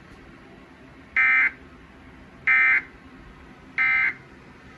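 Emergency Alert System end-of-message data tones: three short, identical buzzy digital bursts, evenly spaced a little over a second apart, closing the test tornado warning.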